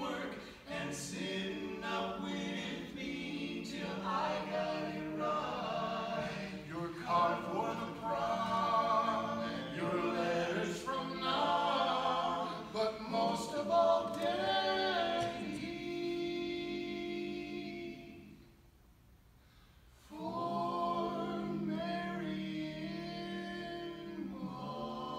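Male barbershop quartet singing a cappella in close four-part harmony. About three-quarters of the way through, a held chord fades to a short pause, then the singing starts again.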